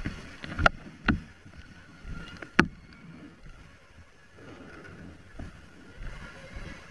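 Rain and water splashing on wet ground, with three sharp knocks in the first three seconds.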